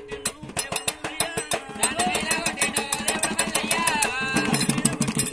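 Telangana folk devotional music: a fast, steady beat on a metal-shelled double-headed drum, with men's voices singing over it from about two seconds in.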